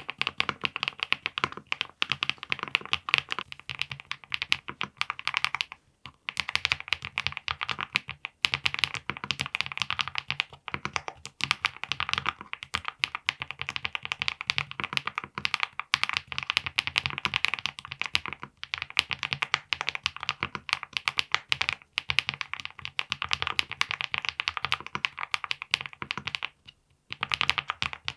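Steady, fast typing on a 75% mechanical keyboard with linear switches, a dense run of key clacks, with a brief pause about six seconds in and another near the end.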